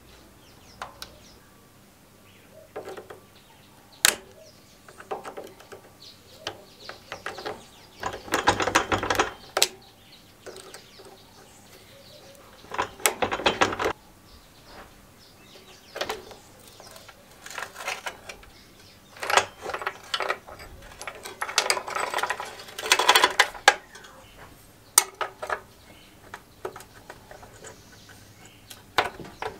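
Metal hand tools working on a Suffolk Super Punch lawnmower's roller-chain drive: scattered sharp metal clicks and taps, and several bursts of rapid metallic clicking from the chain and a ratcheting spanner.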